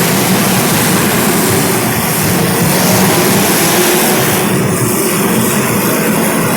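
Several small race-car engines running together at speed, a continuous loud drone whose pitch wavers up and down as the drivers work the throttle.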